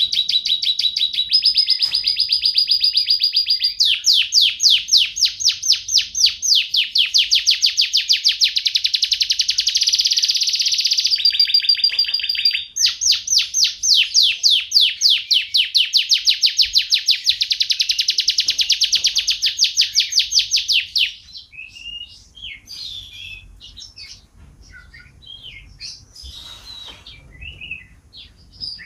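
Domestic canary singing a long run of rapid trills, broken twice by a brief held whistle-like note. About 21 seconds in, the song gives way to softer, scattered chirps and calls.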